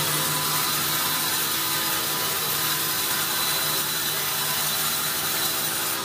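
Vertical band saw running steadily through hard pine on its log carriage: an even hiss of the blade in the wood over the steady hum of the saw.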